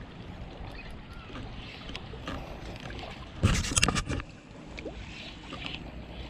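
A small hooked fish splashing at the water's surface as it is reeled in toward the bank: a short burst of splashes about three and a half seconds in, lasting under a second, over a faint steady background.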